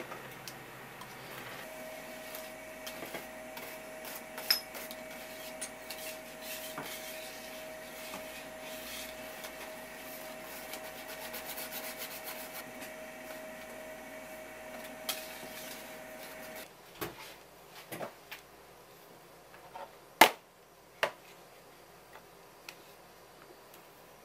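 Wire whisk scraping and ticking against a stainless-steel pot while stirring thick miso paste, over a steady hum with one steady tone. About 17 s in the hum stops, and a few sharp knocks follow, one of them loud about 20 s in.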